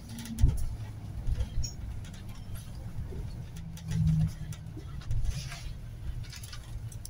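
Inside a city bus, the engine's low rumble as it slows into a stop. There is a sharp thump about half a second in, with a few lighter knocks and rattles after it.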